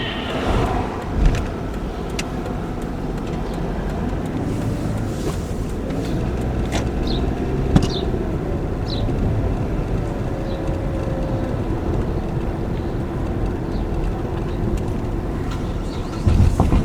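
Car on the move: steady engine and road noise, with a few short clicks and knocks.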